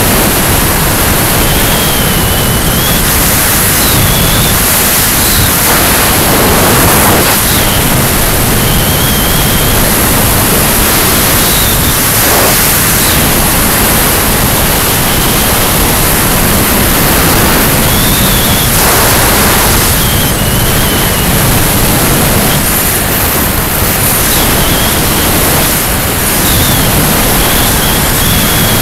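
Loud, steady wind rushing over the microphone of a camera on a moving motorcycle at road speed, covering everything else. Now and then a faint high whistle wavers through it.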